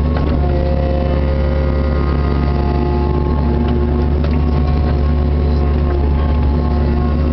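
Kubota KX61-3 mini excavator's diesel engine running steadily under working load, heard from inside the cab. A whine from the hydraulics rises and fades as the boom and bucket are worked through a dig.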